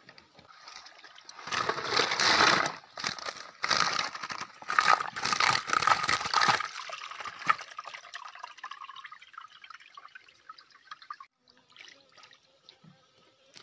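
Live fish thrashing and splashing in a mesh net as the catch is tipped into a plastic drum of water, in loud splashing bursts for several seconds. Then water trickles and drips off the net and fades away.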